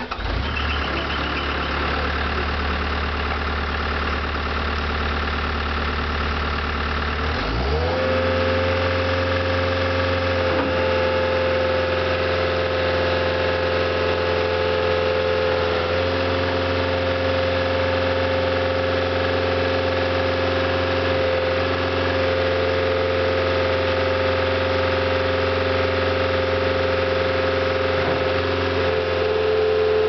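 Caterpillar 277C compact track loader's diesel engine starting and settling into an idle. About eight seconds in the engine speed rises to a higher, steady run, with small shifts in tone as the lift arms and bucket are worked to cycle hydraulic fluid.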